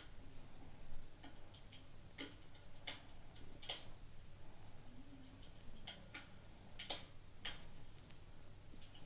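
Wood fire in a fireplace crackling: sharp, irregular pops and snaps about a second apart over a low steady hum.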